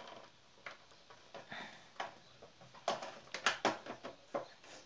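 Light clicks and rustles of hands threading the upper thread through the take-up lever and tension guide of a Singer household sewing machine, the clicks coming more often in the second half.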